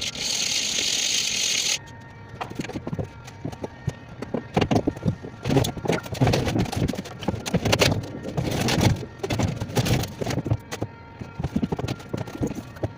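A steady hiss for about the first two seconds, then irregular knocking and clattering, loudest in the middle. This is hand work on the metal interior of an old van during teardown.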